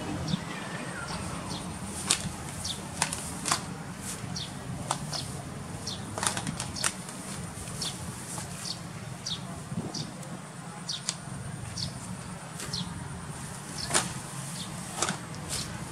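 Homemade motorized grass cutter running with a steady low hum, its spinning head cutting through grass and weeds with scattered sharp ticks and snaps.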